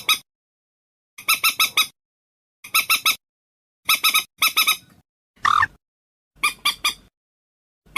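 Recorded bird calls: short bursts of three or four quick, sharp, high notes, repeated about once a second with dead silence between. About halfway through comes one different, drawn-out note.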